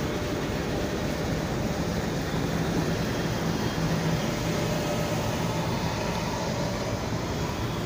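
Diesel locomotive idling, heard close up: a steady, even engine rumble with a low hum.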